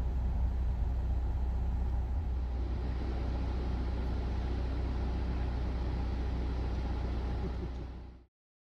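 Car engine idling, a steady low hum that cuts off to silence about eight seconds in.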